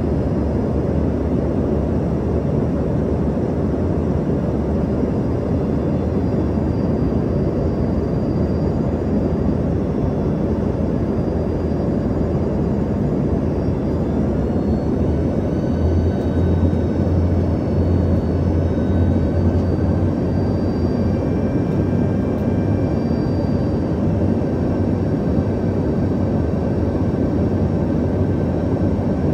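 Steady cabin noise of an Embraer ERJ-145 regional jet, a dense engine and airflow drone from its rear-mounted Rolls-Royce AE 3007 turbofans, with a faint high turbine whine. A deeper hum swells for a few seconds about halfway through.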